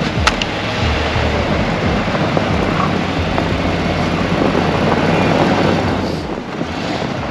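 Ford E-Series van's engine running under load as the van creeps through snow, its tyres churning snow, with wind on the microphone.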